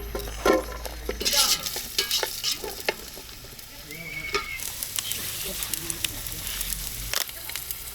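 Pieces of camel meat sizzling as they fry in a cooking pot, with clicks and knocks of a utensil stirring them. The sizzling hiss becomes steadier about halfway through.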